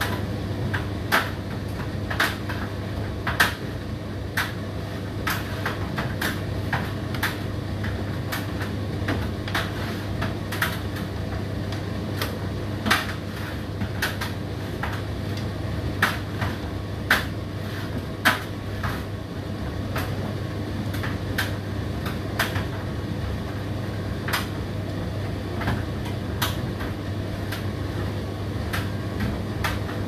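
Indesit IDC8T3 condenser tumble dryer running, a steady motor hum with irregular clicks and knocks of the load tumbling in the drum.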